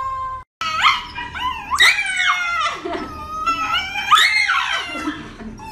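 A Shiba Inu yelping and howling in protest as its paw is held. It gives a run of about five drawn-out cries, each sliding up and then down in pitch.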